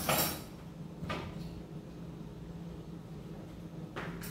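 A few short kitchen knocks and clunks at the stove, the loudest right at the start, another about a second in and another near the end, over a steady low hum.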